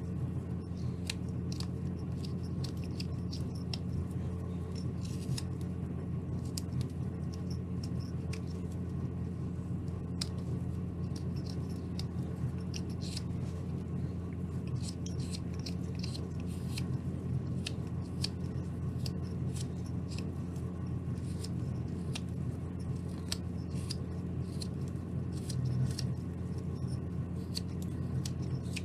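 A carving knife taking paring cuts in basswood: many short, crisp slicing clicks at an uneven pace. A steady low hum runs underneath.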